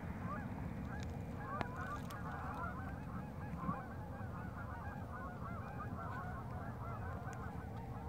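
A flock of geese flying overhead, many birds honking at once in a dense, overlapping chorus that sets in about a second in and carries on.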